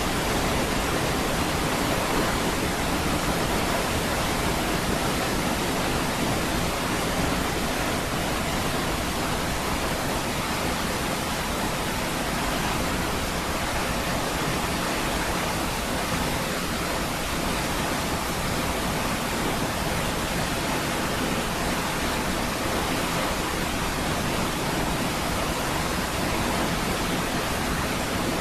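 Niagara Falls: water falling and crashing in a steady, unbroken roar of white noise.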